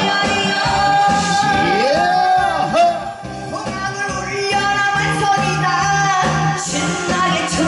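Female vocalist singing a Korean trot song into a microphone over instrumental accompaniment, amplified through PA speakers. She holds a long note with vibrato, then bends the pitch in sweeping slides about two seconds in.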